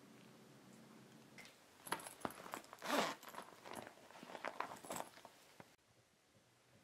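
A handbag's zipper being pulled open and hands rummaging inside, a run of clicks and rustles loudest about three seconds in.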